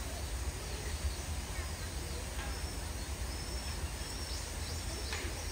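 Outdoor background noise with a steady low rumble, and faint short high bird chirps scattered through it.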